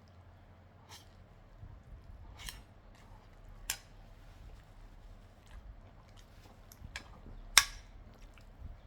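A person eating: soft chewing with scattered sharp clicks and crunches, two of them much louder, about a third of the way in and near the end.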